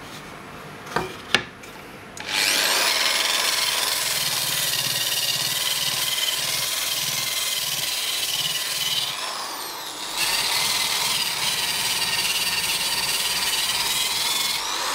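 ProEkco EP6411 700 W electric rotary polisher, fitted with a sandpaper disc, starts about two seconds in and runs with a steady whine while sanding a wooden board, the disc rasping on the wood. Two sharp clicks come just before it starts, and the sound briefly drops around nine seconds in before picking up again.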